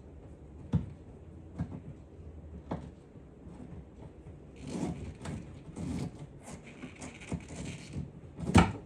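Hand work on parts being fitted: a few sharp knocks and clicks, a stretch of rustling and scraping in the middle, and a louder sharp knock near the end.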